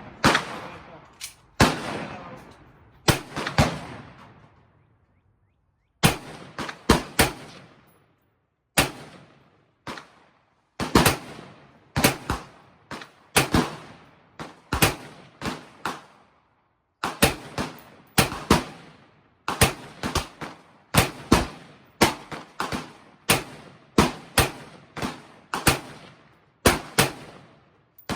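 AR-15 rifle firing 5.56 mm rounds: a long string of single shots, roughly one every half second to a second, each with an echoing tail, broken by two short pauses.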